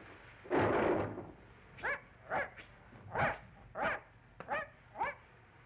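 Cartoon sound effect: a short burst of noise about half a second in, then six short dog-like yelps spaced about half a second apart, each rising and falling in pitch.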